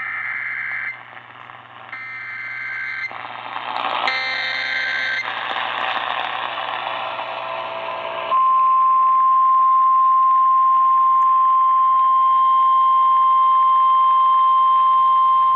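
NOAA Weather Radio alert activation received over the air. Three roughly one-second bursts of warbling two-tone SAME digital header data come with radio static between them. About eight seconds in, the loud, steady 1050 Hz Weather Radio warning alarm tone starts; it announces the severe thunderstorm warning that follows.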